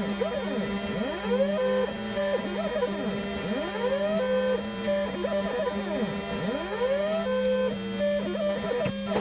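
DIY CNC machine's stepper motors whining as the axes move: tones that rise in pitch, hold steady, then fall, again and again, over a steady low hum.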